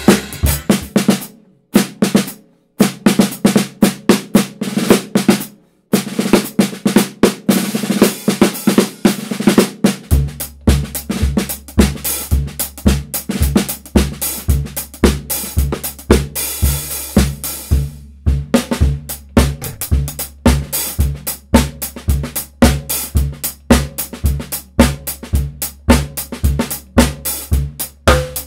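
Drum kit played with sticks: fast snare strokes and rolls with bass drum and hi-hat, broken by two short pauses in the first six seconds. From about ten seconds in, a steady low beat runs under the snare work.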